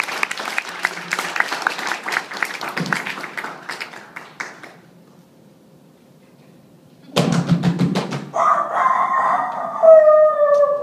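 Audience applause that fades out about four to five seconds in, then a pause. About seven seconds in a man starts a loud imitation of a rooster crowing, ending in a long note that falls in pitch.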